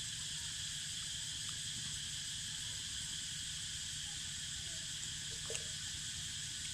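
Cicadas singing in chorus, a steady continuous high buzz, over a low steady rumble.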